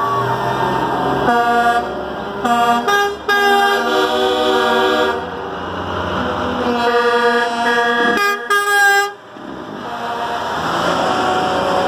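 Semi-truck air horns blasting repeatedly as the trucks pass, with several notes sounding together in each blast, about half a dozen blasts over the first nine seconds. After that comes the running and road noise of the passing trucks.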